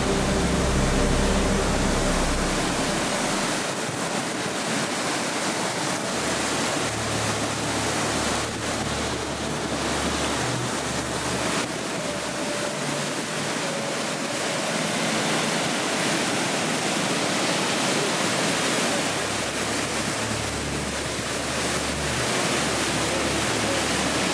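Steady rushing of whitewater from the Merced River and Vernal Fall: a dense, even roar of water, with low rumbles coming and going.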